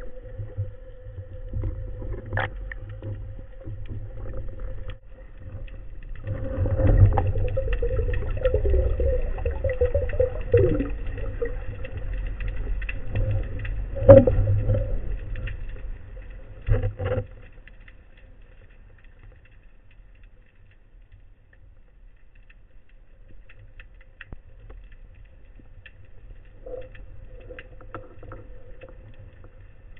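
Underwater sound from a spearfishing dive: a low rumble of water moving against the microphone under a steady hum, with a few sharp clicks. The rumble swells for about ten seconds, the loudest click comes about fourteen seconds in, and after about seventeen seconds it settles to a faint hum.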